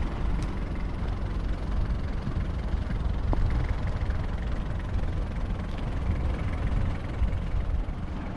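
Wind buffeting the microphone: a steady low rumble that flickers constantly, over outdoor harbourside ambience.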